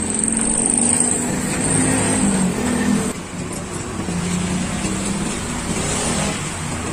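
Steady engine noise of motor vehicles passing on the road, with a low hum that wavers in pitch.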